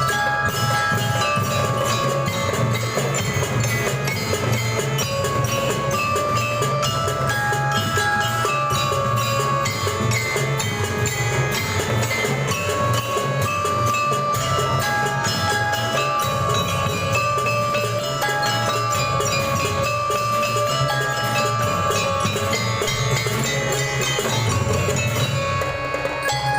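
A school drum band plays a tune: held melody notes over steady drumming with bell-like mallet percussion.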